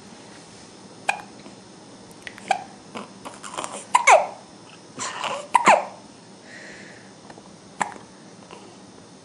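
Baby hiccuping: short sharp hiccups a second or more apart, with a louder cluster of hiccups and brief falling-pitch baby vocal sounds around the middle.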